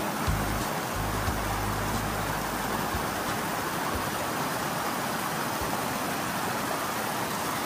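Mountain stream cascading over rocks: a steady rushing of water, with a low rumble under it in the first second. It cuts off suddenly at the end.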